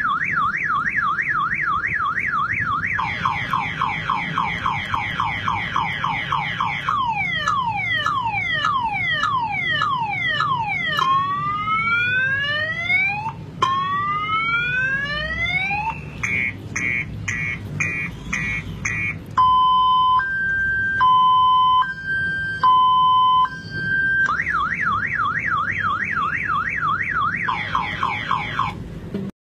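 A man imitating a multi-tone car alarm with his mouth. He works through the alarm's cycle: a fast warble, a slower warble, falling sweeps, rising whoops, quick chirps, and alternating two-tone beeps with short gaps, then back to the fast warble before stopping abruptly.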